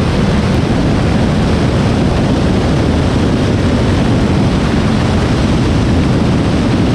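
Van's RV-10 light aircraft in flight: steady roar of its piston engine, propeller and rushing air, even and unbroken throughout.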